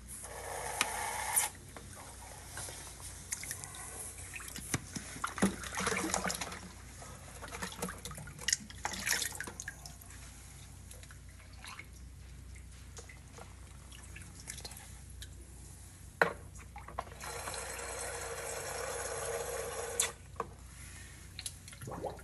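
A plastic sample bottle being dipped and filled in standing cave water: splashing, trickling and drips with handling clicks, and a steady rush of water briefly about a second in and for about three seconds near the end.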